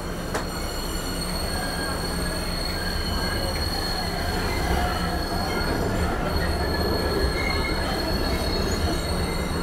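Boston MBTA Green Line light-rail car running, heard from inside the car: a steady high-pitched wheel squeal over the low rumble of the car, with a sharp click just after the start.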